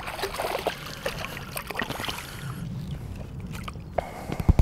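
Stream water sloshing and splashing around a landing net as a small rainbow trout is brought in, with a few louder, sharper sounds near the end.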